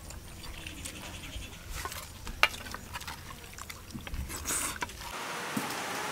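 Soft wet smacks and clicks of people eating idli and mutton kulambu by hand off banana leaves: fingers squishing the food, and chewing. About five seconds in, these give way to a steady hiss.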